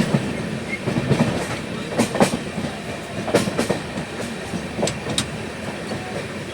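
Passenger train running along the track: a steady rumble, with the wheels clicking over rail joints in pairs, one pair roughly every second and a half.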